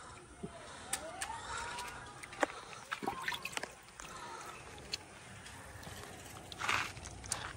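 Fuchka being served: scattered clicks and taps of handling, with water sloshing and a short splash about seven seconds in as shells are dipped into tamarind water. Faint voices in the background.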